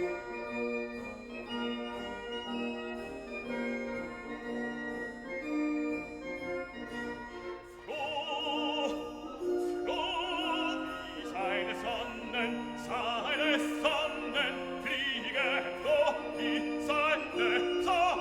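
Classical background music: an instrumental keyboard-like accompaniment, joined about eight seconds in by an operatic singer with strong vibrato, singing in German.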